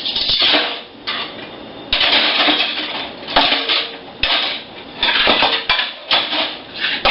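Dishes and cutlery clattering and clinking as they are handled, in irregular bursts with a few sharp knocks.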